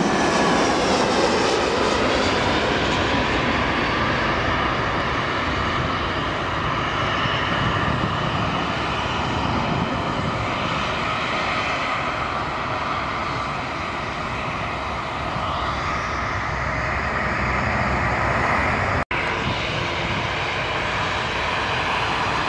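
Jet airliner engines. In the first couple of seconds a low-flying Airbus A320-family jet passes on its landing approach, its whine falling in pitch, and after that comes a steady jet roar. The sound drops out for an instant near the end.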